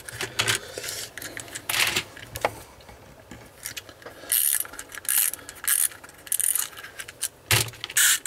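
The clockwork spring motor of a cheap plastic toy train locomotive being wound by hand, a few short bursts of ratcheting clicks, among knocks of plastic being handled. There is a sharper knock near the end as the engine is set on the track.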